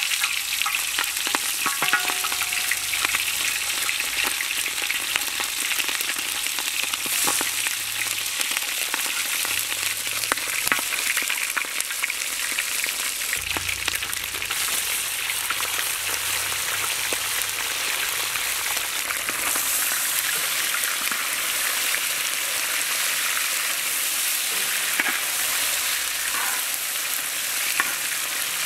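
Goat meat pieces sizzling steadily as they fry in hot oil in a wide metal pan, with a spatula stirring them near the end.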